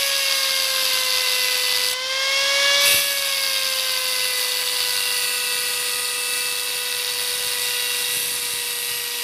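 Electric angle grinder with a cutting disc cutting into a metal motorcycle handlebar, its motor whining steadily over a gritty hiss of disc on metal. The pitch sags and recovers with a brief louder swell about two to three seconds in as the disc bites; the cut is made only part way through the bar.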